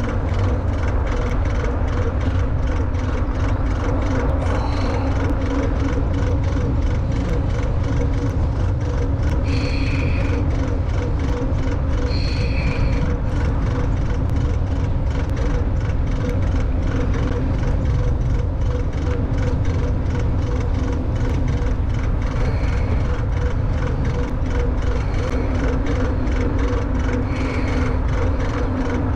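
Riding noise from an e-bike at speed: wind rumbling on the camera microphone over tyre noise on pavement, with a steady hum from the motor.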